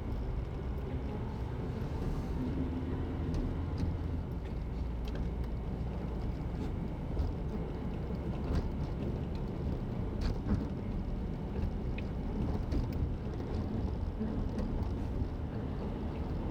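Road noise inside a moving car: a steady low rumble of engine and tyres, with a few faint ticks.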